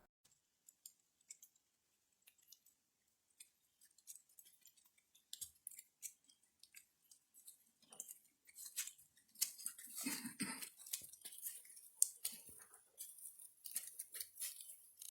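Irregular faint crackling and clicking, sparse at first and growing denser, with a brief scuffing rustle about ten seconds in.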